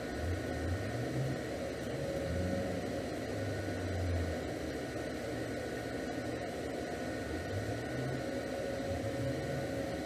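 Steady machine hum and hiss with a low, wavering drone and a few faint steady high tones.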